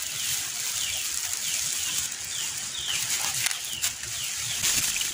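Dry rice bran pouring from a plastic sack into a plastic tub, a steady hiss with rustling of the sack. Over it a bird chirps over and over, short falling chirps about twice a second.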